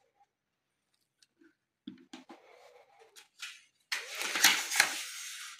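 Hands handling the printer and its packing: a few light knocks about two seconds in, then rustling of packing material, loudest over the last second and a half.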